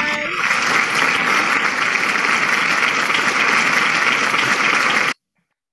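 Many people clapping together, heard through video-call audio as a dense, steady applause that cuts off suddenly about five seconds in.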